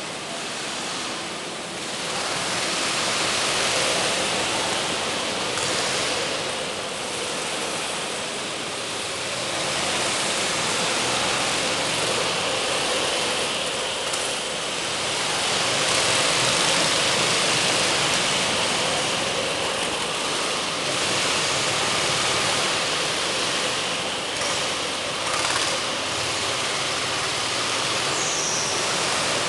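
Go-kart engines running as several karts lap an indoor track, a dense steady din inside the hall that swells a little about halfway through as a kart passes close.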